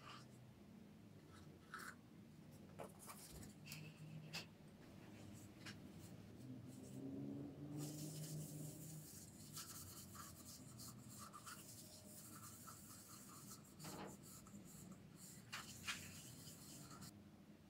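Faint handling clicks and knocks, then from about halfway a soft, steady scuffing of a cloth rubbed over a turned algarrobo-wood vase, wiping on its oil finish.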